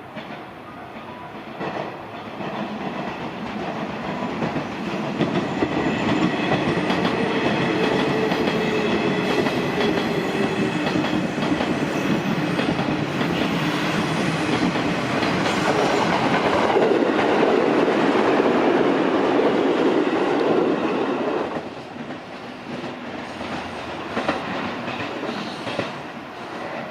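A train passing close by, its wheels clattering over the rail joints. The sound builds over the first few seconds, stays loud for about fifteen seconds, then drops away suddenly near the end.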